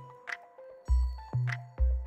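Background music with deep bass notes and a steady beat; the bass drops out briefly and comes back about a second in.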